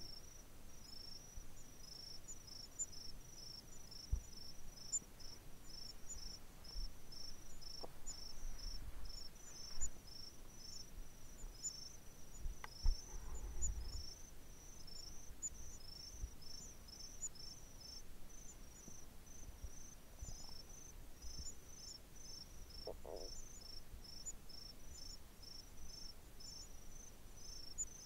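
Crickets chirping in a steady, even series of short, high chirps, about three a second. A few faint low thumps and rumbles break in now and then.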